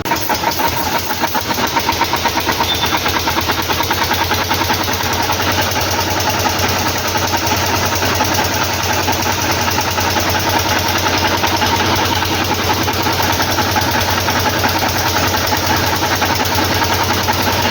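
An engine running steadily at idle, with a rapid, even pulsing beat.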